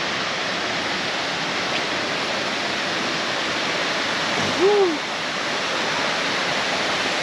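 Jungle waterfall rushing steadily, flowing low rather than gushing. A little past halfway, one short call rises and falls in pitch over the water.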